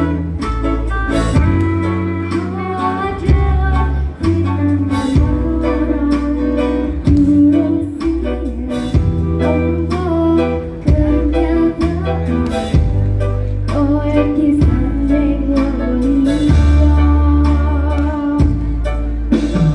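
Background music: a song with guitar over a steady bass line, with singing.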